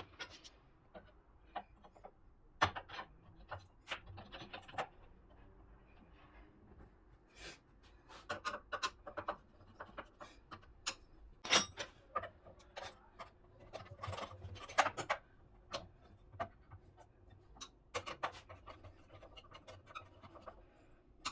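Irregular clicks, knocks and rubbing of miter saw parts being handled and fitted together by hand, with louder knocks scattered throughout.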